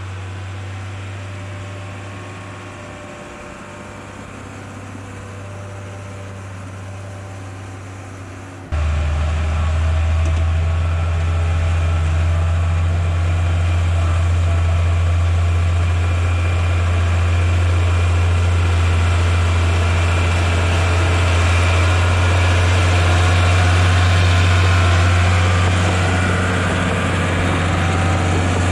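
Crawler bulldozer's diesel engine running steadily as it pushes dirt, heard from a short distance at first. About nine seconds in it becomes suddenly much louder and heavier, heard from right beside the machine.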